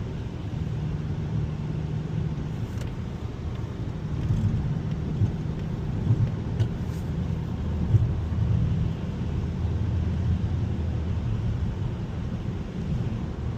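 In-cabin sound of a 2021 Mazda 3 Turbo AWD driving on snowy roads: a steady low rumble of engine and tyres, with a few short thumps around the middle.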